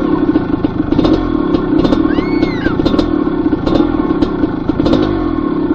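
Dirt bike engine running at low speed on a rough trail, its pitch dipping and recovering about once a second, with frequent knocks and clatter from the bike going over rocks. A brief high squeal rises and falls about two seconds in.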